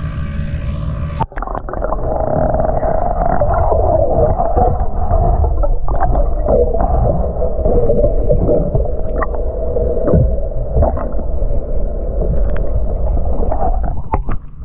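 A camera goes under the sea surface about a second in, and open-air sound gives way to muffled underwater sound: a steady hum and low rumble, with scattered knocks and clicks.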